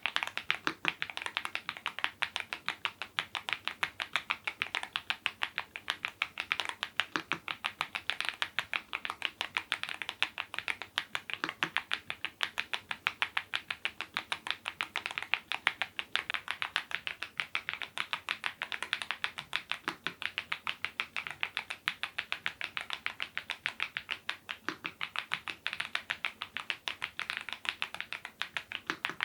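Typing on a YUNZII IF99 full-size mechanical keyboard with lubed Gateron Zero switches: a fast, steady run of keystroke clacks.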